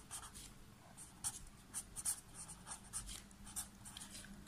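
Felt-tip marker pen writing on a sheet of paper: faint, irregular short strokes as letters are written.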